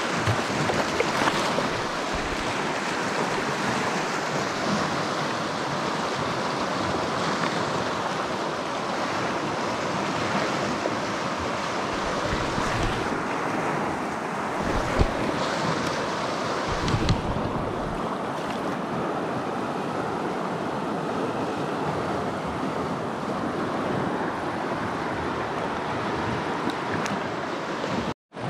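Steady rush of a shallow mountain trout stream running over rocky riffles, with a few brief low buffets of wind on the microphone near the middle.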